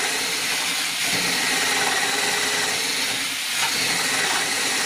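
Cordless drill running steadily under load, its 8 mm bit boring a hole through a wooden headboard leg for an M8 carriage bolt, with a steady motor whine.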